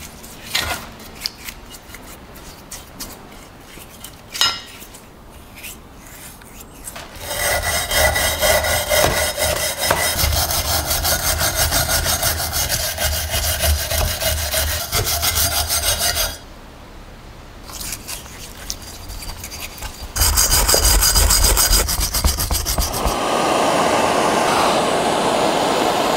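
A bristle brush working paint stripper over a cast-iron hand grain mill to lift the old paint and rust: light dabs and taps at first, then long spells of fast, rhythmic scrubbing. In the last few seconds a handheld gas torch hisses steadily.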